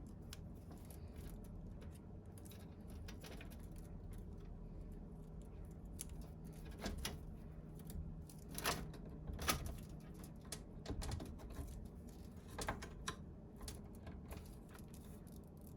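Scattered light clicks and taps of computer parts and cables being handled and fitted into a PC case, over a faint steady hum. The loudest clicks come about halfway through.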